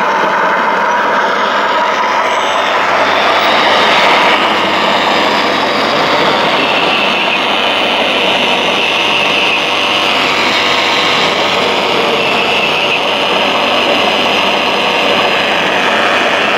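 Radio-controlled scale crawler dozer driving over loose soil: a steady mechanical whine and rattle from its drive, gears and steel tracks, with a higher whine coming in about six seconds in.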